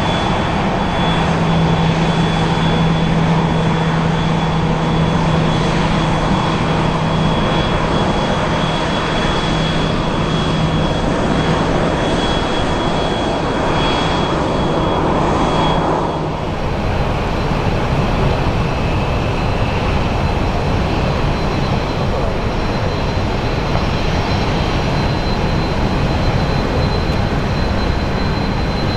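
Airliner jet engines running steadily: a broad rush with a high whine and a low hum. About halfway through, the sound cuts abruptly to another jet's engines with a slightly higher whine.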